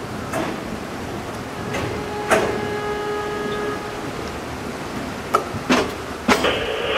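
Train rolling slowly onto a steel truss bridge: a steady rumble with scattered knocks and clicks from the wheels on the track. About two seconds in a steady pitched tone sounds for about a second and a half. Near the end a cab radio crackles on.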